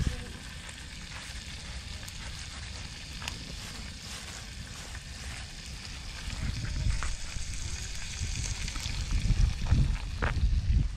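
Whole small fish (Australian salmon and trevally) sizzling steadily as they fry in a frying pan, with a low rumble underneath that grows louder in the second half.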